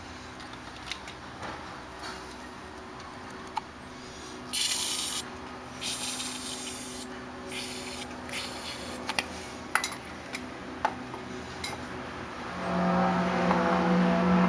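Three short hissing bursts of aerosol insecticide spray, each under a second, starting about four seconds in, then scattered light clicks and rustles. Near the end a steady motor hum sets in.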